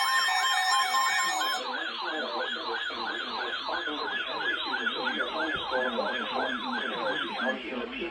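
Electronic siren on a fast yelp, its pitch sweeping up and down about three times a second, stopping about seven and a half seconds in. For the first second and a half it overlaps a steady electronic tone that steps between pitches.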